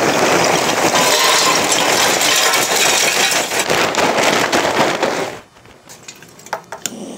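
Lump hardwood charcoal poured from a bag into metal chimney starters: a dense clatter of clinking pieces that stops about five and a half seconds in, followed by a few single clinks.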